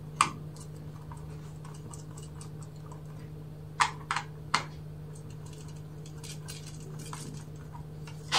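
A few small sharp clicks and taps as screws are undone on a Commax intercom door panel: one near the start, then three in quick succession about halfway. A steady low hum runs underneath.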